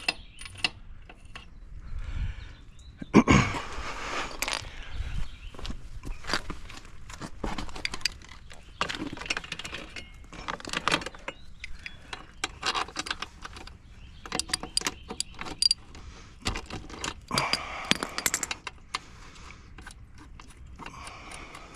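Metal hand tools clinking and scraping with scattered clicks as a motorcycle's rear axle and chain adjuster bolts are loosened, with one louder knock about three seconds in.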